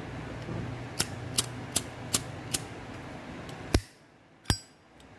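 Vintage 1957 Zippo lighter's hinged lid being flicked open and snapped shut over and over. It gives a run of sharp metallic clicks a little over two a second, then two louder clacks spaced wider apart in the second half. The sound is a good, crisp action, which is what buyers check on these lighters.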